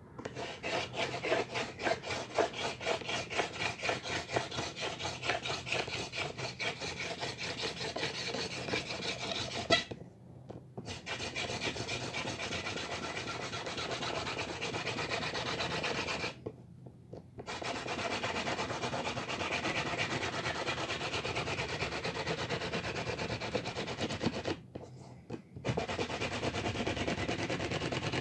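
Bamboo spindle of a hand drill twirled back and forth in an ivy hearth board: a rhythmic grinding rub, about three strokes a second at first and then steadier, broken by three short pauses. The friction is lighting a fire, and the board is smoking by the end.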